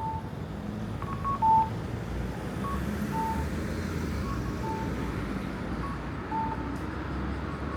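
Short electronic beeps at two alternating pitches, repeating irregularly, with the loudest about a second and a half in, over a steady low rumble of street traffic.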